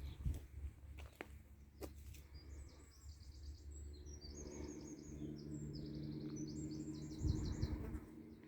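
A songbird singing a run of fast, high trilled phrases, starting about two seconds in and stopping shortly before the end, over a steady low background rumble. A few faint clicks come in the first two seconds.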